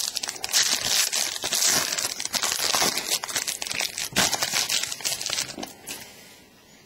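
Foil wrapper of a trading card pack crinkling loudly as it is torn open and handled, dying away about six seconds in.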